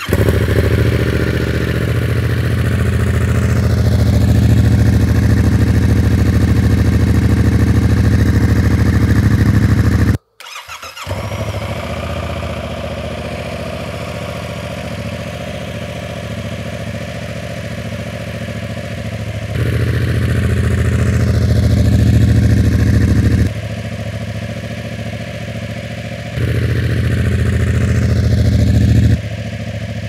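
Yamaha MT-07's parallel-twin engine cold-starting and idling through an Arrow Works exhaust on decat racing headers with the dB killer fitted, with the engine fully cold. The sound stops briefly about ten seconds in. It then idles more quietly, with two spells of a few seconds where it runs louder.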